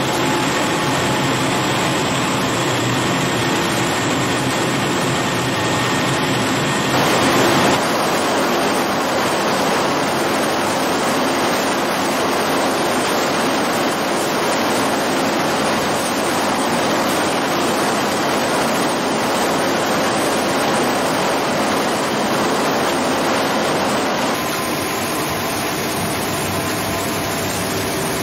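Food-processing machinery running: a steady, loud mechanical noise that changes character about seven seconds in and again near the end.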